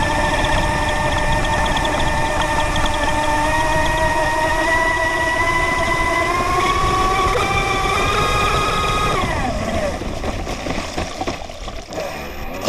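Radio-controlled race boat's motor running at speed, heard from on board with water rushing against the hull; its pitch climbs slightly from about six seconds in. About nine seconds in the throttle is cut and the motor note drops away, leaving the sound of water against the slowing hull.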